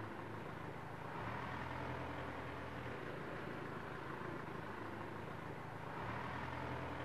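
Faint, steady outdoor background rumble with a low hum, typical of distant road traffic.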